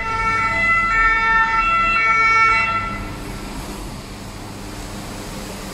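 Emergency vehicle siren with tones switching back and forth, loud for about three seconds and then fading away.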